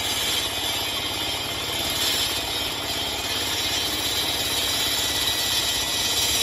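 Dongfeng single-cylinder diesel engine on an asphalt road saw running steadily under load while the blade cuts asphalt: a fast, even engine pulse under a steady high grinding hiss from the blade.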